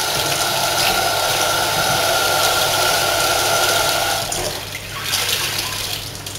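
Kitchen tap running steadily as a tea towel is wetted under warm water. The flow shuts off abruptly about four seconds in, leaving quieter handling sounds.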